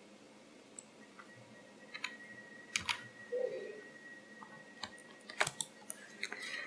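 Computer keyboard keys and mouse buttons clicking now and then as shortcuts are pressed, a handful of separate taps.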